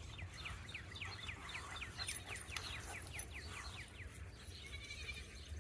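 A songbird singing a fast run of downward-slurred whistled notes, about four a second, stopping after roughly three and a half seconds, with a fainter twitter near the end. A low steady rumble lies underneath.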